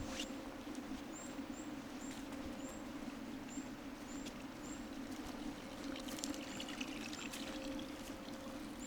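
A waterfall pouring with a steady rushing sound. A bird gives short, high peeps every second or so.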